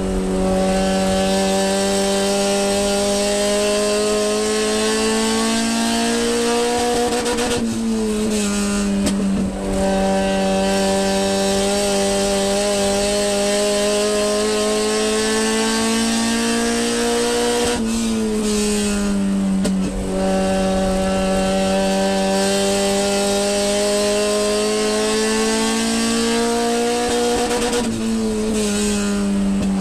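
A sport compact race car's engine heard from inside the cockpit, running hard as it laps an oval. Its pitch climbs slowly along each straight and drops sharply as the car eases off for the turns, about every ten seconds, three times.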